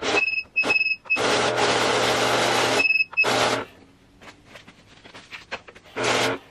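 Electric banknote counter running a stack of bills through: its motor whirs for about a second and a half, with short high beeps just before and after the run. Two briefer whirs follow as more bills are fed in.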